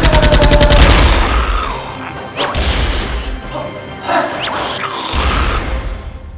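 Action-film soundtrack: a rapid burst of dubbed automatic gunfire in the first second, then background music punctuated by a few heavy hits and whooshes.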